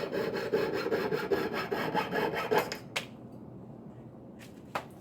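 Saw blade cutting through two overlapping layers of a metal bangle with quick, even strokes. The sawing stops about three seconds in with a sharp click, followed by a second click near the end.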